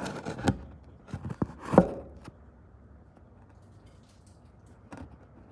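A few short clicks and rustles of handling in the first two seconds, then quiet room tone with one faint knock near the end.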